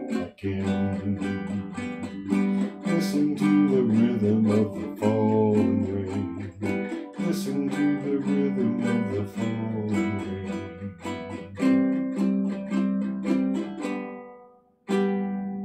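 Ukulele strummed in steady chords, the instrumental close of a song. The strumming dies away about 14 seconds in, then a single final chord rings out.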